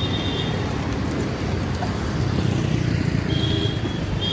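Steady street traffic noise from passing vehicles, with short high-pitched beeps at the start and twice near the end.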